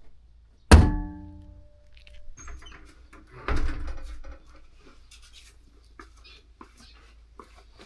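A sharp knock less than a second in that rings on with a clear tone for about a second, followed by clattering, a second thump and a few small clicks.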